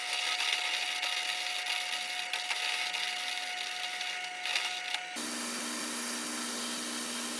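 Metal-cutting bandsaw running and cutting a small steel flat bar to length: a steady whine over a hiss. About five seconds in it switches abruptly to a narrow belt sander grinding the cut steel piece, a steady hum and hiss.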